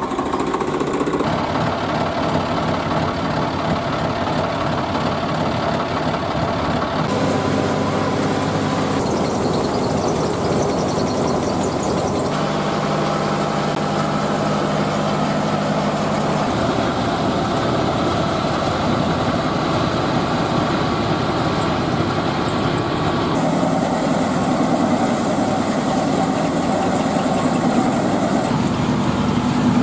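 Diesel tractor engines running steadily, among them a Swaraj 855 FE and a John Deere 5050 E powering a paddy thresher. The sound changes abruptly every few seconds as the shots cut from one machine to another.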